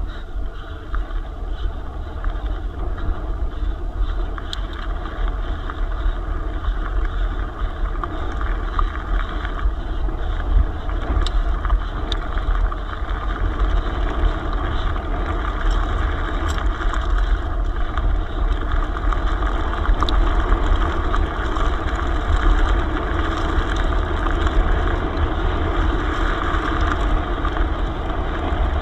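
Steady noise of an electric mountain bike riding an enduro trail, heard from a camera on the bike or rider: wind buffeting the microphone, with tyre and bike noise and a few sharp clicks.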